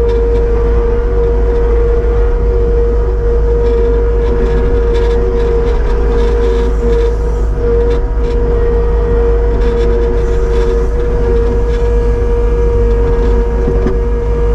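Kubota SVL75-2 skid steer's diesel engine running steadily under load, with a steady whine over the engine, while its toothed bucket works at the dirt in a ditch.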